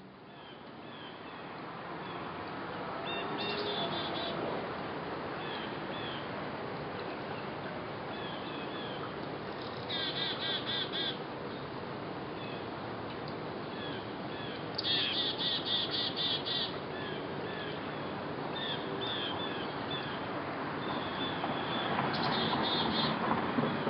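Bird calls over a steady outdoor hiss, fading in over the first two seconds. Scattered short chirps run throughout, and four times a bird gives a burst of rapid repeated high calls, about five a second, each lasting one to two seconds.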